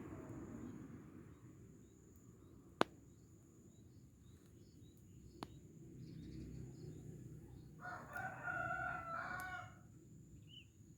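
A rooster crowing once, starting about eight seconds in and lasting under two seconds. Two sharp clicks come earlier, the first of them the loudest moment.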